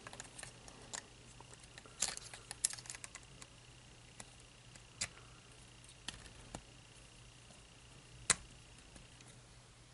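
Scattered faint clicks and knocks of hard plastic LEGO dragon parts being handled as the neck piece is fitted back onto the body, the sharpest click near the end.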